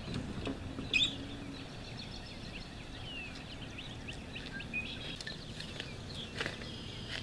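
Small birds chirping and twittering, with a sharp click about a second in and a couple of lighter knocks near the end.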